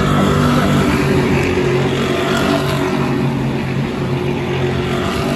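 A pack of V8 SuperUtes race utes driving past through a corner, their engines running together in a loud, steady drone.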